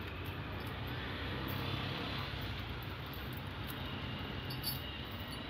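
Steady roadside traffic noise with a low engine rumble.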